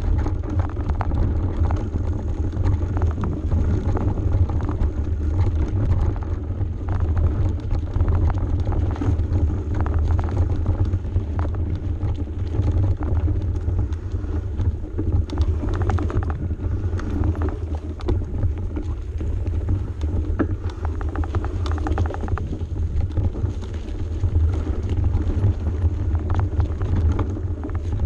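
Mountain bike descending a steep dirt single track: a steady low rumble of tyre vibration and wind on the microphone, with frequent short rattles and knocks as the bike runs over roots and rocks.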